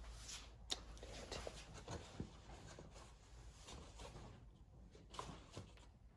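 Faint scraping and handling noises in a quiet garage, with a sharp click under a second in, over a low steady hum.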